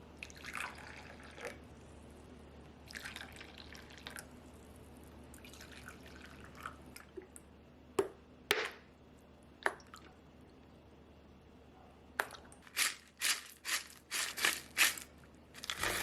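Kitchen sink work: three short runs of water from the tap with dripping, then sharp clicks, and near the end a quick series of about eight knocks and clinks of things being handled.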